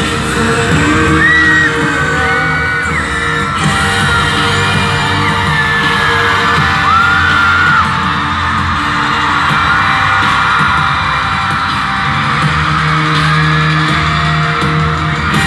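Live music over a concert PA in a large hall, with the audience screaming and cheering over it.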